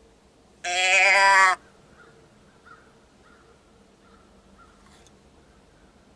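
A single loud deer bleat, a nasal pitched call lasting just under a second, about two-thirds of a second in; faint high chirps follow.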